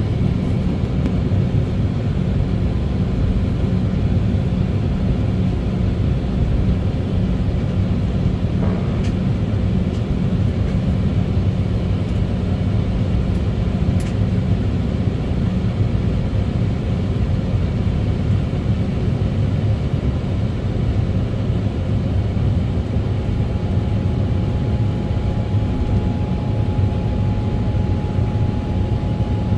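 Cabin noise of an Embraer E190 taxiing, its GE CF34-10E turbofans at low taxi thrust: a steady low rumble with a rushing hiss above it. A faint steady whine joins near the end.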